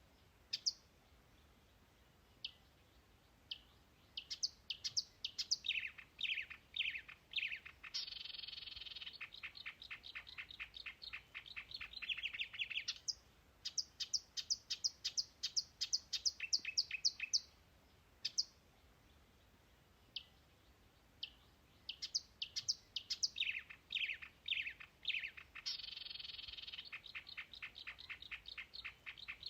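Songbird singing: bursts of rapid high chirps, runs of falling notes and a long fast trill, with short quiet gaps between phrases.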